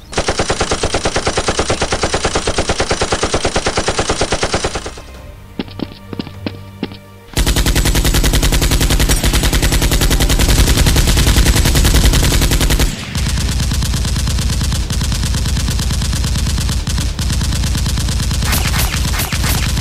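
Rapid automatic-gunfire sound effects laid over Nerf blasters being fired: a long burst of about five seconds, a few single shots, then a heavier, deeper burst from about seven seconds to thirteen, and steady rapid fire after it.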